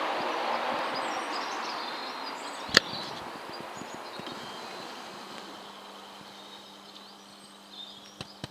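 A steady rushing noise that fades away over several seconds, with one sharp click about three seconds in and faint high chirps above it. A low steady hum comes in about halfway through.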